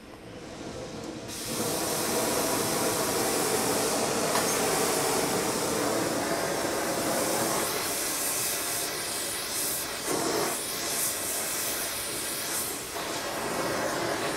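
Gas torch flame hissing steadily while it heats a steel crank web to expand its bore for a shrink fit. The hiss builds up to full strength about a second in.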